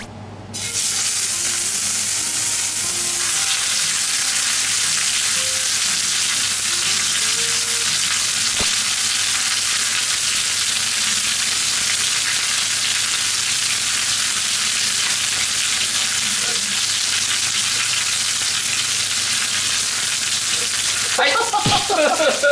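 Rolled, string-tied pork chashu searing in a hot iron frying pan: a steady, loud sizzle that starts suddenly as the meat goes into the pan about a second in.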